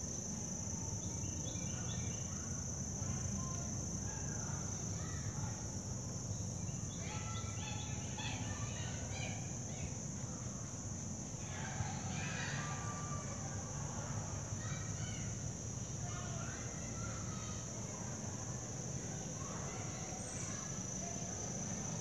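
A steady, high-pitched insect trill, with scattered short bird chirps over a low background rumble.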